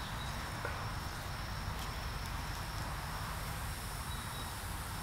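Steady outdoor insect chorus: a faint, continuous high-pitched trill over a low background rumble.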